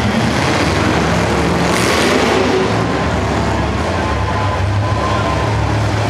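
Demolition derby car engines running, a steady low drone with a brief louder swell of noise about two seconds in.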